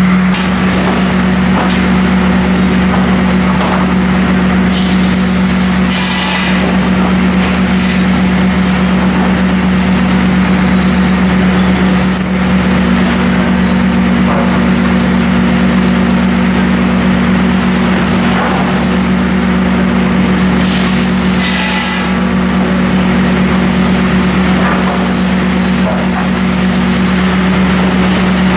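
Pendu high-speed two-saw lumber trimmer running: a loud, steady machine hum from its saw motors and lug conveyor, with a second, slightly higher tone that joins about halfway through and drops out near the end. Short sharp noises break in a few times.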